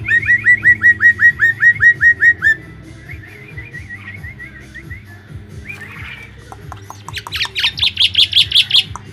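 Pet starling (jalak) calling: a quick run of about a dozen loud, evenly repeated chirps, then softer repeated notes, a short harsh rasp, and near the end a fast run of higher chattering notes.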